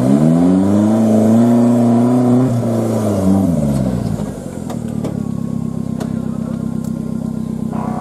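Off-road 4x4's engine revved hard, its pitch rising, holding, then dropping away about 3 to 4 seconds in. Then an off-road 4x4's engine runs steadily at low revs, with a few sharp clicks.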